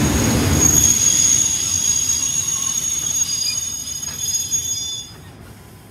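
Passenger train in motion, heard from on board: a high-pitched metallic squeal from the running gear over a rumble that fades. The sound drops away sharply about five seconds in.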